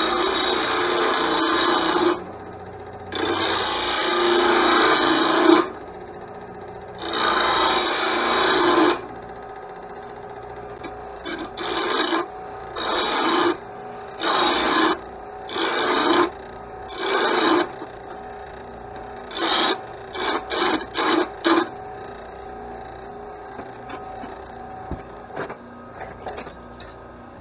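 Lawn mower blade being sharpened: rasping strokes of metal on metal. Three long strokes come first, then shorter strokes about a second each, then a quick run of short strokes and a few faint ones near the end.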